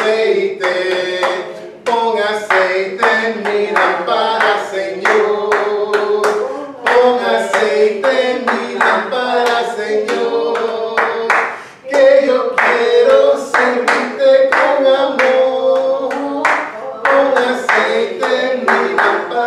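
A man singing a worship song unaccompanied, amplified through a microphone, with hand claps keeping a steady beat.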